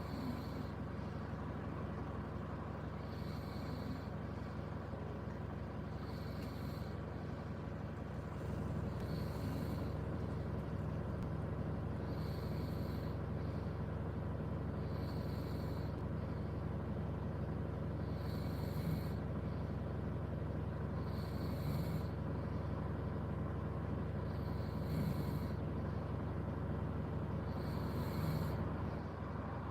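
A person snoring in rhythm, one snore about every three seconds, over a steady low hum inside the car.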